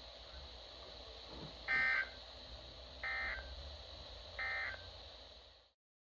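Emergency Alert System end-of-message code played through a weather radio's speaker: three short buzzy data bursts about a second and a third apart, the first the loudest, over steady receiver hiss and hum. The sound cuts off abruptly shortly before the end.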